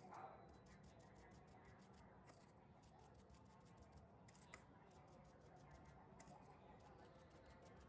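Near silence, with faint rapid ticking throughout and one sharper click about four and a half seconds in.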